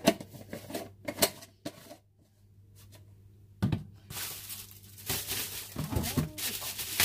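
Hard objects knocking on a stainless-steel counter a few times, then, from about four seconds in, plastic wrapping rustling and crinkling as a taped, plastic-wrapped food container is handled.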